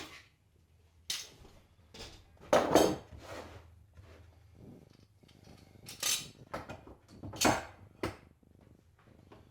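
Metal clamps clanking and knocking as they are handled and set on a workpiece: a series of separate sharp clanks, the loudest about two and a half seconds in and again about seven and a half seconds in.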